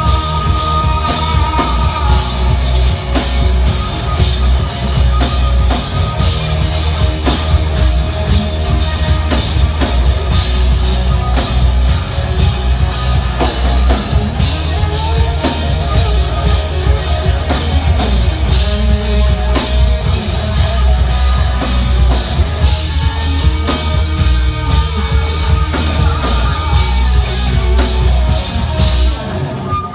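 Live rock band playing, drum kit and guitars over a strong bass line. The drums and cymbals stop shortly before the end, leaving a few notes ringing.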